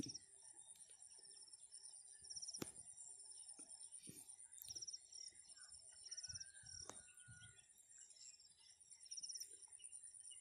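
Near silence: faint outdoor ambience of insects keeping up a steady high trill, with short repeated chirps and an occasional faint bird call. Two soft clicks a few seconds apart are the loudest sounds.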